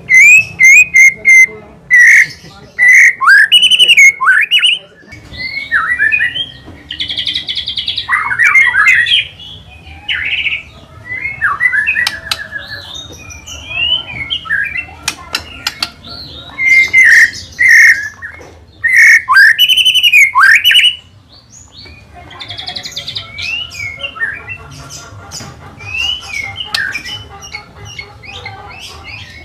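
White-rumped shama singing loud, varied phrases of clear whistles, fast trills and harsh notes, in bursts with short pauses between them. The song is loudest at the start and again a little past halfway.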